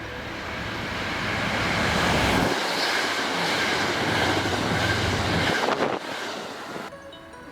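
Express train running through a station at speed without stopping: the rumble builds over the first two seconds, holds for about three seconds, then falls away quickly about six seconds in.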